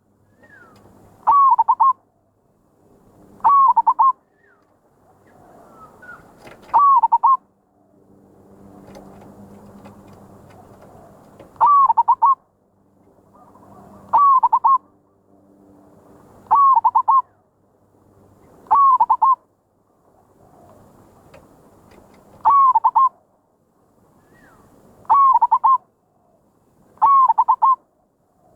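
Zebra dove (merbok) cooing: a short, loud coo of a few quick looping notes, repeated about ten times at uneven gaps of two to five seconds. It is the kind of call prized in a merbok lure bird.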